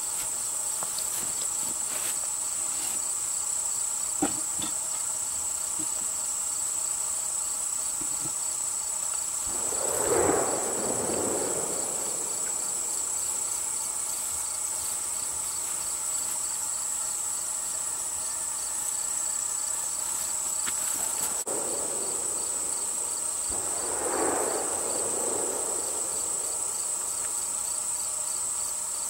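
Steady high-pitched chorus of crickets, with two short swells of rushing noise, one about a third of the way in and another near the end.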